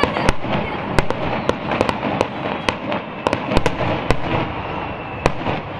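Aerial firework shells bursting overhead in an irregular, rapid series of sharp bangs over a steady crackle, the bangs thinning out near the end.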